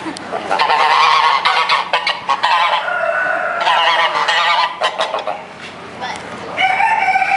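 Geese honking loudly and repeatedly, harsh overlapping calls, with a brief lull about five to six seconds in.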